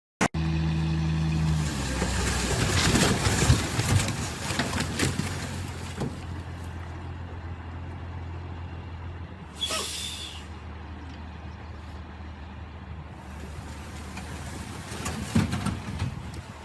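Heavy vehicle engine running steadily, with clattering and knocks for a few seconds early on and again near the end, and a short hiss about ten seconds in.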